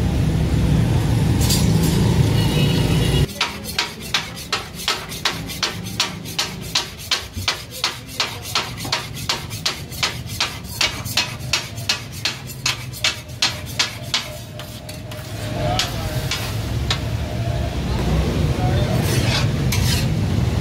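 Metal blade striking a flat iron griddle (tawa) as it chops kidneys and hearts for taka tak: a fast, even clacking of about three to four strikes a second, which stops near the middle. It comes between stretches of a low steady rumble, which cuts off suddenly about three seconds in and returns near the end with a few scattered strikes.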